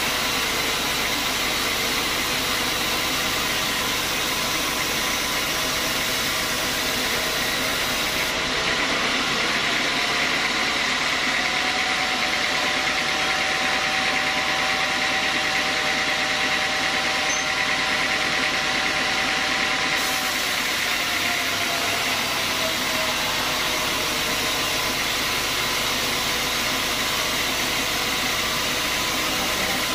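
Sawmill band saw running steadily as its blade rips lengthwise through a large timber beam: a continuous mechanical hum and hiss. A tone in the machine rises slightly about ten seconds in and drops back about ten seconds later.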